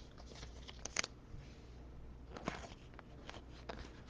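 Faint handling of trading cards: a few soft clicks and scrapes as cards are slid and flipped by hand, the clearest about a second in and again midway.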